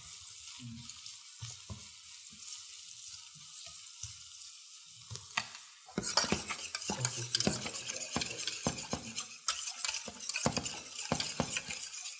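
Onions sizzling in oil in a frying pan, stirred with a spatula with soft knocks. About six seconds in it suddenly gets louder, with a metal utensil scraping and clinking rapidly against a stainless saucepan as the white sauce is stirred, over the frying sizzle.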